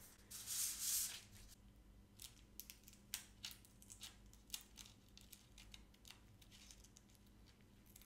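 Faint rustling and scraping of a paper sheet being pressed and stuck onto a wall, with a longer scrape about half a second in and a scattering of light clicks and taps after it.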